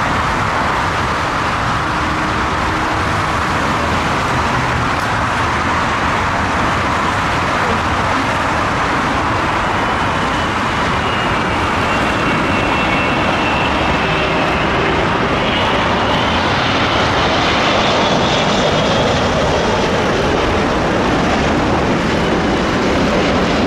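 Airbus A380 on final approach with gear down, its four jet engines making a steady, loud noise that grows a little louder after the middle, with a faint high whine coming in about halfway through.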